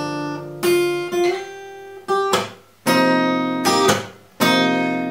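Acoustic guitar: a few chords strummed one at a time, each left ringing and fading before the next, with no singing over them.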